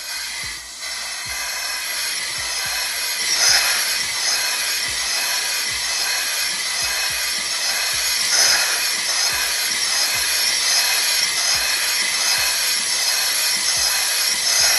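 Compressed air hissing steadily through a bellows-type gas meter, with a repeating pulse as its bellows and slide valves cycle the air from one chamber to the other, and small ticks from the linkage.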